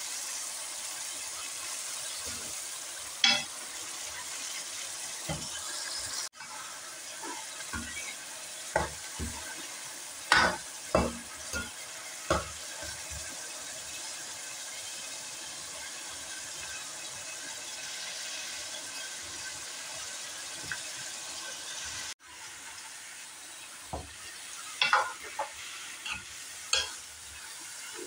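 Meat pieces frying in oil in an aluminium pan, sizzling steadily, while a metal ladle stirs them with scattered sharp clicks and scrapes against the pan.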